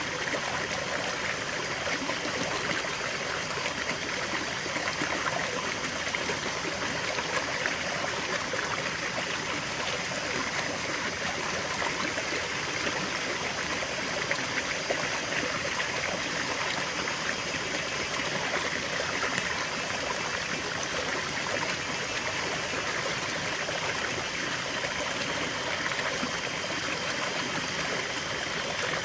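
Small stream of water flowing and trickling steadily, a constant babble without pauses.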